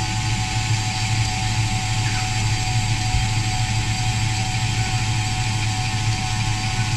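KitchenAid Classic stand mixer running steadily, its motor humming as the wire whisk beats egg whites with added yolks into batter for chile rellenos.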